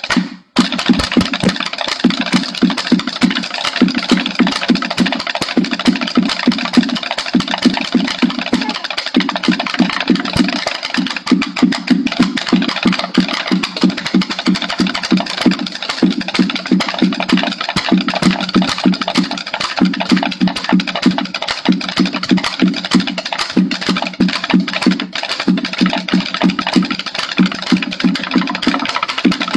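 Fast chenda-style drumming with sticks: an unbroken roll of rapid strokes over a pulsing lower beat, with a brief break just after the start.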